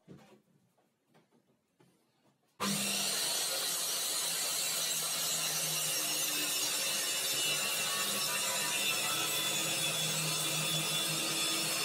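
Faint pencil scratches against a ruler, then, about two and a half seconds in, a handheld Parma circular saw abruptly comes in loud, running steadily as its blade cuts through laminated chipboard, with a vacuum hose drawing off the dust.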